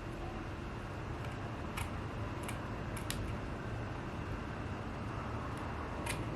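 A steady room hum with a handful of light, sharp clicks and snips, about five, from handling the wig and a tool, two of them close together about three seconds in.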